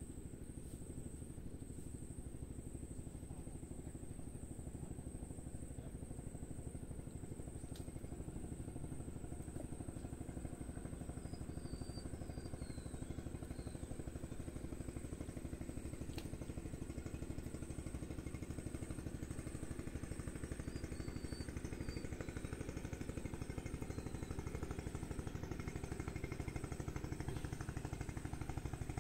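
A distant engine running with a steady low drone that slowly grows louder. A few faint, short high chirps come in twice around the middle.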